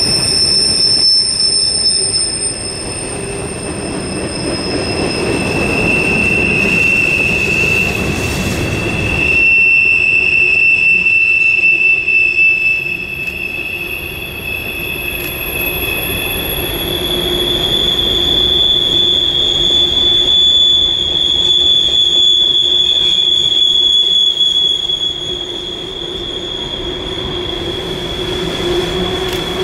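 Freight train rolling past, its wheel flanges squealing against the rail in long, high-pitched tones over a steady rumble of the cars. The squeal changes pitch about halfway through.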